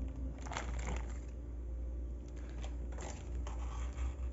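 A few brief crinkling and scraping sounds as cream cheese is added to a bowl of minced imitation crab and shrimp, over a low steady hum.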